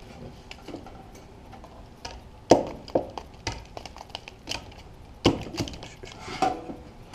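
Sheet-metal toolbox parts knocking and clinking irregularly as they are handled and shifted to line up rivet holes, with a few sharper knocks about two and a half, three, five and six seconds in.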